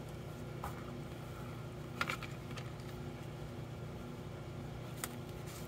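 A few faint clicks and taps of hard plastic phone-case parts being handled, the loudest a quick double click about two seconds in. Under them runs a steady low hum.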